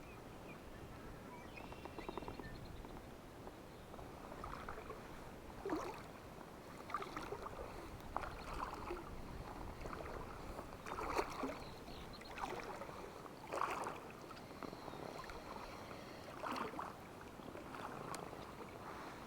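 Water splashing and swishing in regular strokes, about one every second and a half, around a float tube moving through the water.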